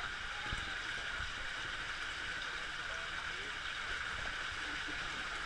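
Water running steadily down a water slide, an even rushing sound.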